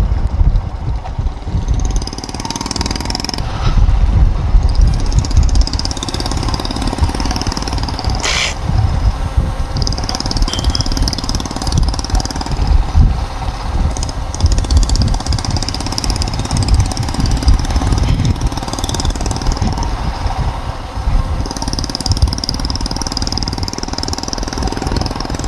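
Motorcycle engine running as the bike is ridden, with a heavy low rumble throughout. A single short, sharp knock sounds about eight seconds in.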